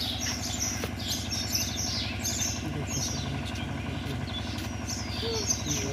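Many small birds chirping and twittering over a steady, low mechanical hum like an idling engine.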